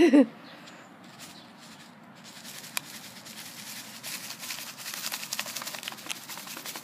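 Plastic catnip pouch crinkling and rustling as it is handled and opened, a crackly run of small clicks that starts about two seconds in and grows louder. At the very start there is a short, loud vocal sound.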